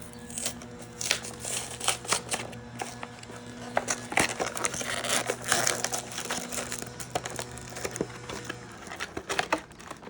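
Plastic packaging of a trading-card mini box and its foil booster packs crinkling and rustling as the box is opened and the packs are handled, in irregular crackles.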